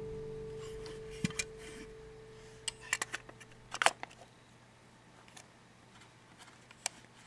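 Small metallic clicks and taps from handling the metal body of a Nikon F camera, its back and bottom-plate lock key being worked. The clicks come in a few scattered pairs, and the loudest pair is about four seconds in.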